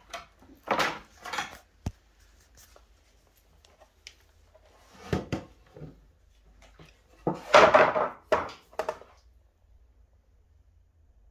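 Handling noise of wooden boards and a tool being worked on the floor: several short knocks and scrapes, a sharp click about two seconds in, and the loudest cluster of knocks about three-quarters of the way through. No power tool is heard running.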